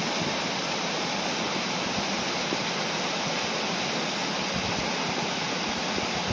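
Small waterfalls on a rocky mountain burn pouring into pools: a steady, even rush of falling water.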